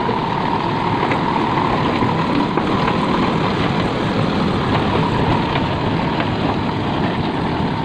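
A vehicle engine idling steadily: a continuous low rumble with a steady hum above it.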